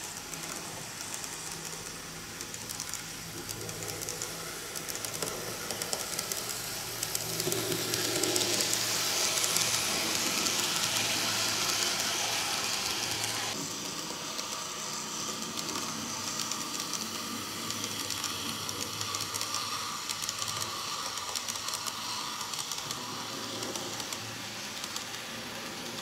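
Kato N gauge model train, a Type 8620 steam locomotive pulling Series 50 carriages, running on the track: a steady rolling hiss of motor and wheels on rail over a low hum. It grows louder about a quarter of the way in and drops off suddenly about halfway through.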